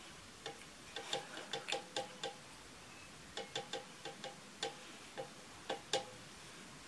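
Light, irregular clicks and taps, about seventeen in two clusters with a pause about halfway, as a makeup powder brush is handled and patted onto the face. Each click has a faint short ring.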